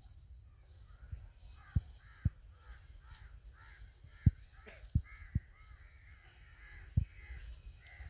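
A crow cawing over and over, about three short calls a second, with several sharp thumps in between, the loudest sounds, as the snared pigeon is handled.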